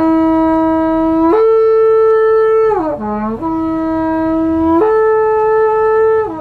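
The long white Holy Week trumpet, about one and a half metres tall, blown loudly in a repeating call. A low note rises to a held middle note, steps up to a higher held note, then slides back down. The call comes twice.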